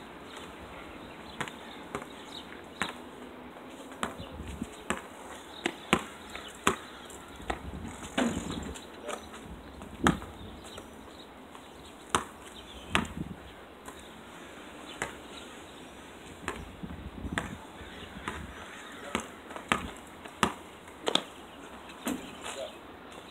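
Basketball bouncing on an asphalt street as it is dribbled: short sharp bounces at irregular intervals, sometimes two or three in quick succession.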